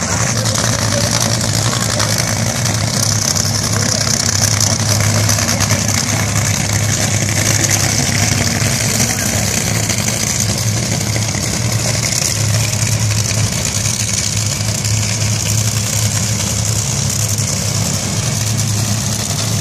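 Top Fuel dragster's supercharged nitromethane-burning Hemi V8 idling, loud and steady, with no revving.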